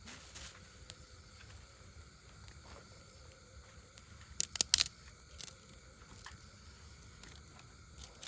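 Campfire wood crackling, with a few sharp pops; the loudest come as a quick cluster about four and a half seconds in. Insects chirp steadily underneath.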